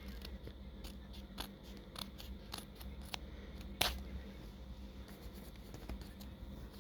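Scissors snipping through a paper envelope: a series of short sharp cuts about every half second, the loudest just before four seconds in.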